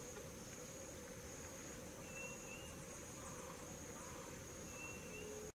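Faint outdoor ambience of insects trilling steadily on one high note, broken three times by a short rising whistled note. The sound cuts out for an instant right at the end.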